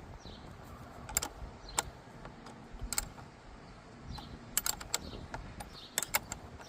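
Sharp metallic clicks of a 10 mm wrench working the nut on a car battery's negative terminal clamp, coming in small irregular clusters as the nut is loosened.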